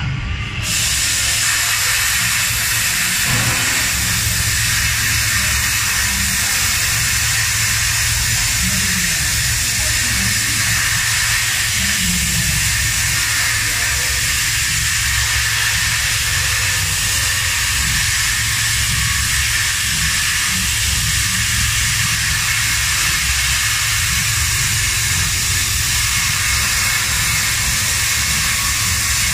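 Hand-held plasma cutter cutting through 20 mm mild steel plate: a loud, steady hiss of the arc and its air jet with a low hum beneath it. It comes on suddenly about a second in as the arc starts and holds without a break.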